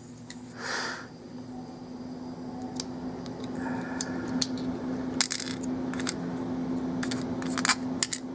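Small metal clicks and clinks of an Abus 83/45 padlock being taken apart by hand, its C-clip being worked off the cylinder. There is a short scraping rush about half a second in, then clicks that come more thickly in the second half, over a steady low hum.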